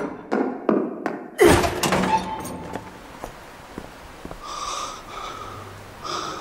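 A person panting in short, hard gasps, then a loud bang about a second and a half in, like a door flung open.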